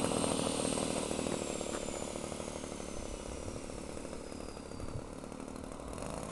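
Single-cylinder two-stroke DLE 20 petrol engine of a radio-controlled Extra 260 model plane idling, growing gradually quieter.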